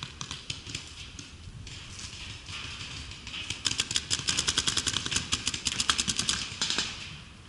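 Paintball markers firing. A few scattered shots come first, then from about three and a half seconds in a rapid string of about ten shots a second runs for nearly three seconds.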